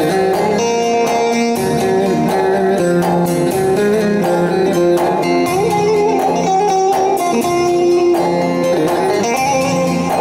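Instrumental passage of a Turkish folk tune (türkü): a bağlama plucked briskly in a running melody, over electronic keyboard accompaniment.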